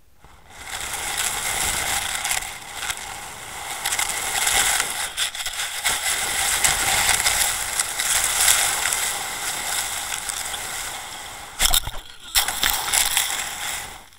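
Underwater camera and lead dragged across a shell-and-gravel seabed: a loud, continuous crunching scrape that starts about half a second in, with a few sharp knocks near the end.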